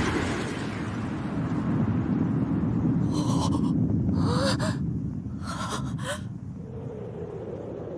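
Three short, breathy gasps of shock from anime voice actors, a few seconds in, over a low rumble left by a blast that fades toward the end.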